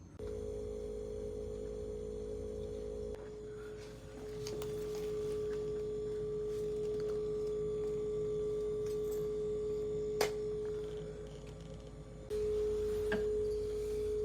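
Steady machine hum holding one clear tone, with a single sharp click about ten seconds in; the hum dips and comes back strongly near the end.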